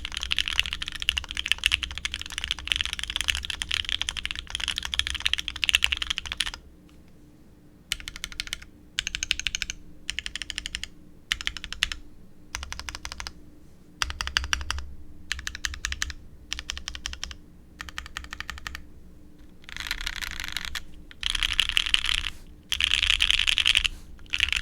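Typing on a Bear65 mechanical keyboard with lubed C3 Fierce Girls linear switches on a polycarbonate full plate, with GMK Noel keycaps. A continuous run of keystroke clacks lasts about six seconds, then comes a string of short bursts of rapid keystrokes with brief pauses between them.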